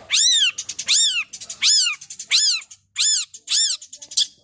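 Long-tailed shrike (cendet) giving a run of about six cat-like mewing calls, each rising then falling in pitch, in a steady rhythm.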